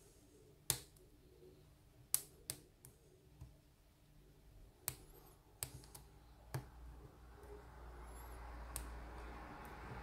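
Small, faint metallic clicks, about nine at irregular spacing, from a hook pick and tension wrench working the pins of a pin-tumbler lock cylinder. A low rustle of handling builds over the second half.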